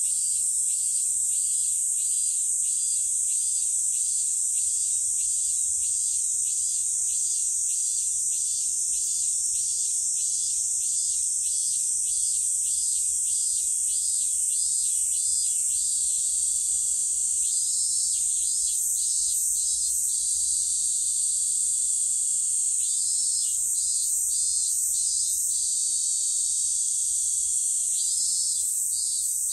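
Cicadas singing: a steady, high, shrill chorus throughout, with a pulsed call repeating about two to three times a second. The pulsed call runs for the first half, then comes back in three short bouts.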